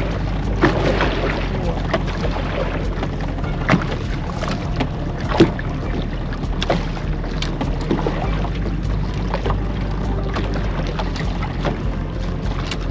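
Boat's outboard motor running steadily at trolling speed, with water washing against the hull. A few short sharp knocks, the loudest about four and five seconds in.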